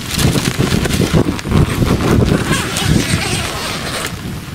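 Rain coming down with gusts of wind buffeting the microphone. The buffeting is loudest over the first three seconds, then eases.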